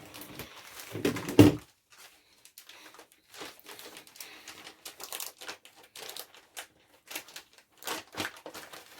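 Packaging being cut and torn open by hand, crinkling and tearing, with a loud burst about a second in and then scattered short crackles.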